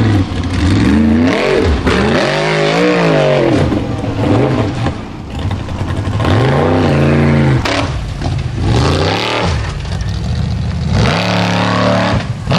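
Formula Offroad buggy's engine revving hard in repeated surges, its pitch rising and falling again and again as the car fights its way up a steep dirt bank.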